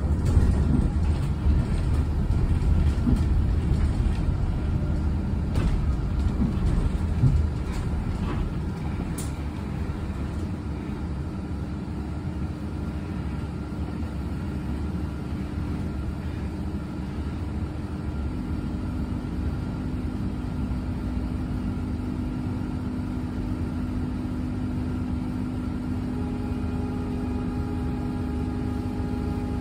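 Cabin sound of an electric city bus: a low rumble with a few knocks and rattles, louder for the first several seconds, then settling quieter while several steady humming tones come in past the middle and more join near the end.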